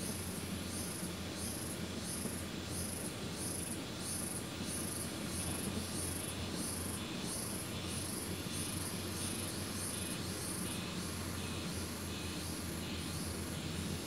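Insects chirring in a steady, even rhythm of very high-pitched pulses, about two a second, with a low steady hum underneath.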